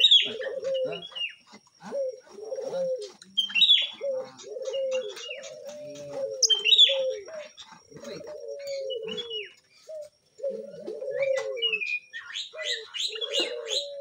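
Caged lovebirds chirping in short, shrill bursts, busiest near the end, over repeated low cooing calls about once a second.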